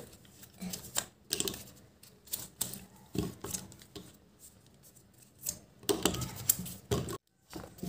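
Plastic science-kit parts clicking and knocking as they are handled and pushed together, a string of irregular sharp taps.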